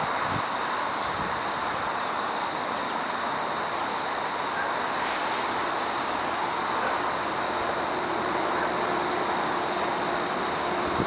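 Approaching CN diesel freight train heard from a distance: a steady rumbling noise of the locomotives and rolling train. A faint steady hum joins about two-thirds of the way through.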